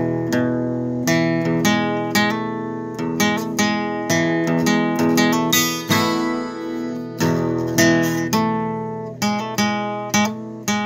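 Acoustic guitar strummed in a rhythmic chord pattern, each stroke ringing on, with no singing.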